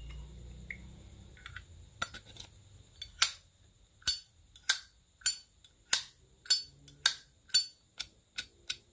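Silver-plated Zippo lighter's lid flicked open and snapped shut over and over, a run of sharp metallic clicks about two a second, starting softly and getting crisp about three seconds in. The lid's clack is a little less clear than a prized one, though still good.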